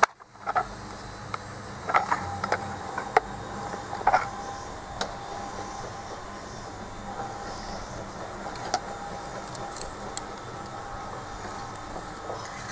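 Plastic garden-railway track sections and a loose metal rail clicking and knocking against a wooden board as they are handled: a handful of sharp clicks in the first five seconds and one more later, over a steady background hum.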